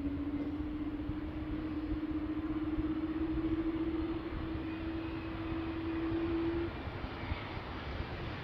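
Boeing 787-9 airliner's jet engines on landing approach: a steady low rumble with a humming tone that rises slightly in pitch and cuts off suddenly about two-thirds of the way through.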